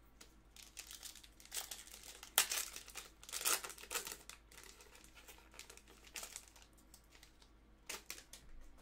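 Foil wrapper of a 2020 Select baseball card pack being torn open and crinkled as the cards are slid out, loudest in the first half, then a few faint rustles near the end.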